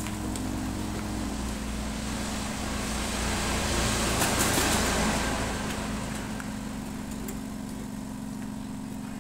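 Steady low motor or engine hum, with a road vehicle passing that swells and fades in the middle.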